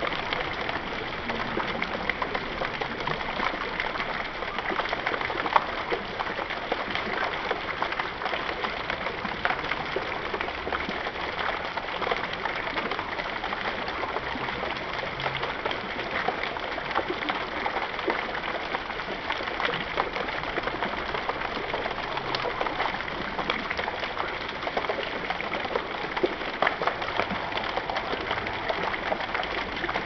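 Garden fountain running steadily: a ring of thin water jets spraying up and falling back as an even splashing of water, with many small drops landing on the top of a stepped pyramid of river stones.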